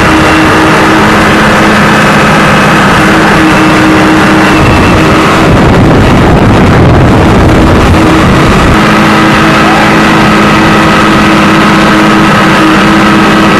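Diesel engine of an aircraft tow tractor running steadily, loud, with a constant low hum. For a few seconds in the middle the hum gives way to a rougher rumble, then returns.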